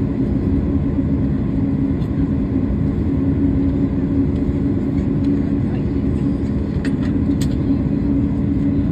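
Airliner cabin noise heard from inside the cabin on the ground: the engines run at idle as a steady low rumble and hum. Two faint clicks come about seven seconds in.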